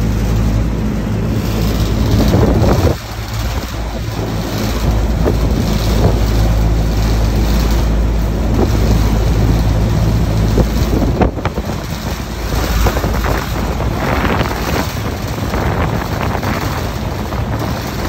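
Outdoor air-conditioning condensing unit running, with a steady low electrical hum and a rushing airflow noise. The hum drops out about eleven seconds in, and the rushing noise carries on.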